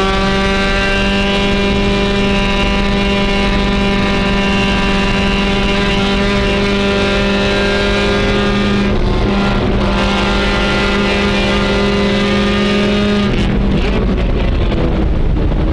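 Race car engine heard from inside the cockpit, held at high, steady revs under full throttle, with a brief rough patch about nine seconds in. Near the end the steady note breaks off and the revs fall away.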